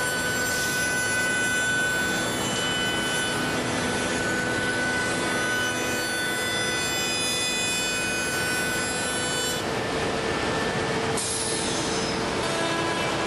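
Busellato JET Optima CNC machining centre's router spindle cutting wooden cabinet-door stiles and rails: steady machining noise with whining tones, dropping to a lower whine about ten seconds in.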